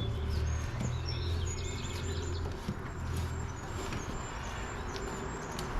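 Birds chirping and singing, many short high chirps and glides, over a steady low rumble.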